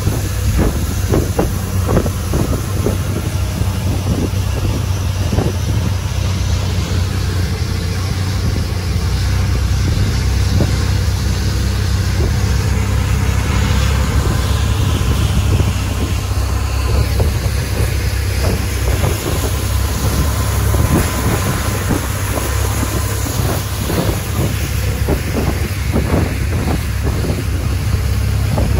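Longtail boat's engine running steadily at speed, a loud low drone, mixed with wind buffeting the microphone and water rushing along the hull.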